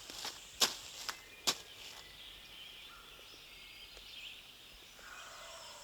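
Four sharp, irregular footsteps or cracks in the first second and a half, then quiet woods with small birds chirping high and faint in the background.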